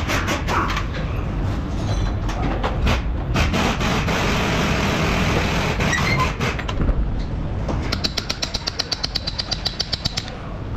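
Metal knocks and workshop noise from a hammer and punch worked against the end of a CV axle in the wheel hub, to drive the axle out. Near the end comes a rapid run of sharp, rattling taps, about nine a second, lasting two seconds or so.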